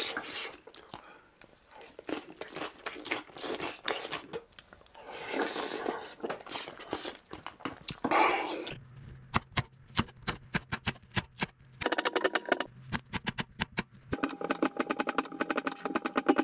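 Close eating sounds, chewing and slurping a spicy braised tofu stew with rice. About halfway through, a kitchen knife starts slicing cucumber on a wooden cutting board: a few separate knocks, then quick runs of rapid chopping knocks.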